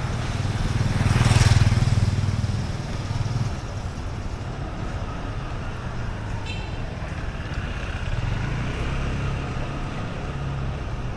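Street traffic: a motor vehicle passes close by, swelling to its loudest about a second and a half in and fading away, over a steady low rumble of engines. A brief high tone sounds about six and a half seconds in, and more traffic swells again near the end.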